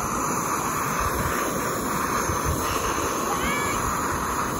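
Fire-Maple Fixed Star 2 integrated canister stove burning with a steady hiss as it heats a liter of water in its pot, with wind rumbling on the microphone.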